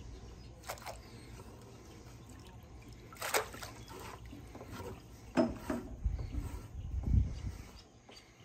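Crab ring net dropped from the pier splashing into the water about three seconds in, followed by water trickling and dribbling, a few softer splashes and a low rumble near the end.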